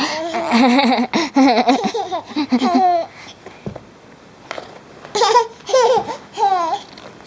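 A young child laughing in a high voice: a wavering run of laughter for about three seconds, then three short, falling laughs near the end.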